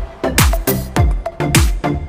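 Background music with a steady kick-drum beat, about two beats a second.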